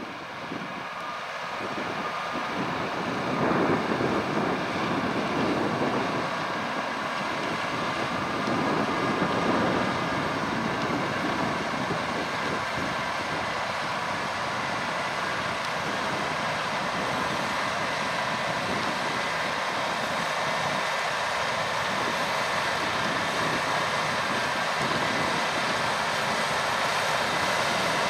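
Case IH Puma 240 CVX tractor's six-cylinder diesel engine working steadily under load as it pulls a seven-furrow reversible plough. It grows louder over the first few seconds as the tractor draws nearer, then holds steady.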